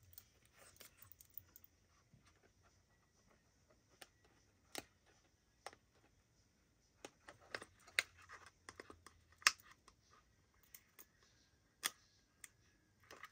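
Faint, scattered clicks and rustles of a small paper box being handled and pressed into shape with a pokey tool, with a few sharper taps.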